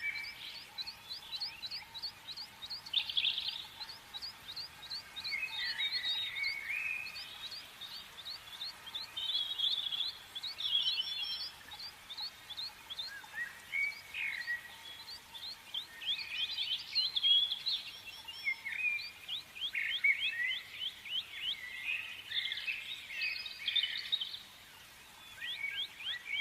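Small birds chirping: fast runs of short, evenly repeated high chips over scattered twittering warbles, several calls overlapping.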